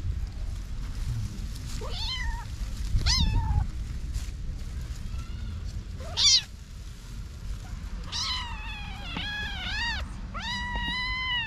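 Young kittens, about six to eight weeks old, meowing: a few short meows in the first half, then longer meows that rise and fall in pitch, one after another, in the last few seconds.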